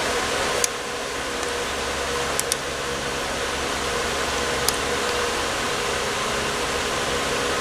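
Steady fan-like hiss with a faint hum, with a few light clicks of small carburetor parts being handled and fitted back on, one about half a second in, two close together in the middle and one a little later.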